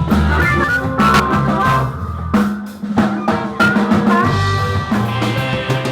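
Rock band music driven by a drum kit, with kick and snare hits over sustained bass and guitar notes.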